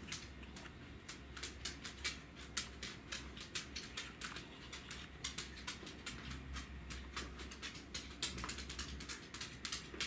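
A flock of Eurasian tree sparrows chirping: a busy, irregular run of short, sharp chirps, several a second, over a low steady rumble.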